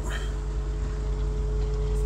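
Steady low mechanical hum of running pond filtration machinery, with a constant higher tone over it.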